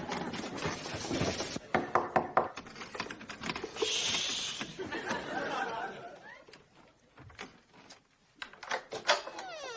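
Paper rustling and a run of sharp clicks as papers and small objects are handled on a bed, with a short hiss about four seconds in; it then goes much quieter, with a few more clicks near the end.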